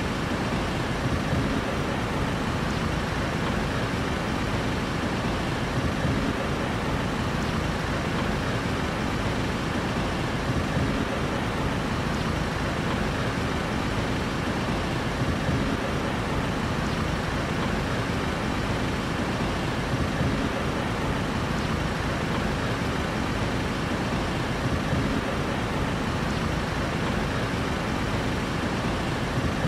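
Steady city street traffic noise: an even, continuous rumble of vehicles with no single vehicle or event standing out.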